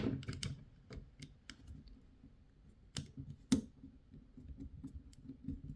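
Scattered light clicks and ticks of metal parts and a small tool being handled on an airsoft pistol as a little screw is worked out, with two sharper clicks about three and three and a half seconds in.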